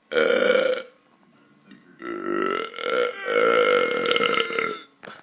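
Two human burps: a short loud belch, then after a second's pause a long drawn-out belch of nearly three seconds with a wavering pitch.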